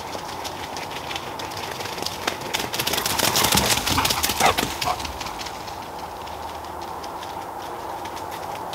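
Dogs' paws running and crunching through dry fallen leaves close by, a quick rustling crackle that builds about two seconds in, peaks around the middle and fades by about five seconds in. Steady outdoor background under it.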